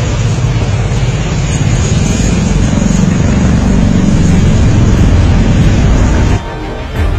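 Large multirotor drone's propellers running loudly in flight, a steady low noise that swells and eases in the middle. It cuts off abruptly about six seconds in.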